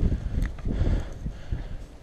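Wind buffeting a small camera microphone in uneven low rumbles, with a single sharp click about half a second in.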